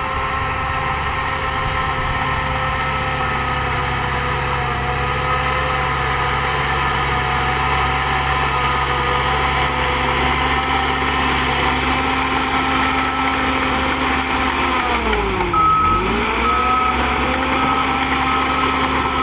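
Shantui DH08 bulldozer's diesel engine running steadily. About three-quarters of the way through, its engine speed dips sharply and recovers, and a reverse alarm starts beeping at an even pace.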